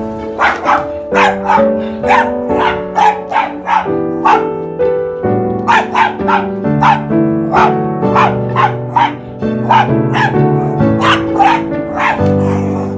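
Small Bichon Frise dog barking in rapid high yaps, about three a second, with a short pause about four seconds in, as it goes after a canister vacuum cleaner. Gentle instrumental music plays underneath.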